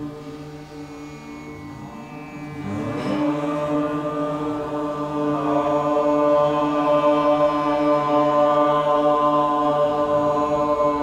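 A group of voices chanting together on one long held note, a steady drone. About three seconds in, more voices slide up into the pitch and join it, and the chant grows louder toward the middle.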